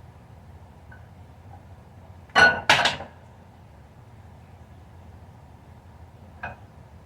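Two sharp clinks in quick succession as the bottle holding the potion is handled and set down, the first with a brief ringing tone. A faint click follows about six seconds in.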